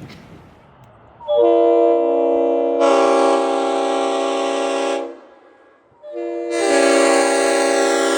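Nathan Airchime RS5T five-chime train horn, upgraded to a full orifice, sounding a chord of steady tones in two long blasts. The first begins about a second in, lasts nearly four seconds and gets louder and brighter partway through. The second begins about six seconds in and is still sounding at the end.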